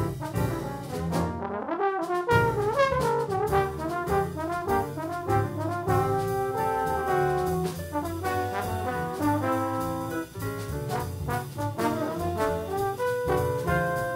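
Small jazz band playing: two trombones play melody lines together over piano, walking upright bass and drums with steady cymbal strokes.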